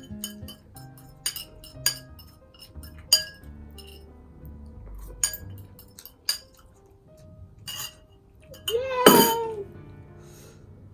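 Eating utensil clinking against a noodle bowl, about seven sharp separate clinks, over steady background music. A short cheer, "Yay!", near the end.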